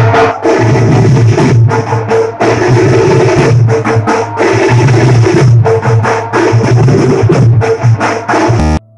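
Loud music driven by drums, with a steady beat and heavy bass, cutting out abruptly just before the end.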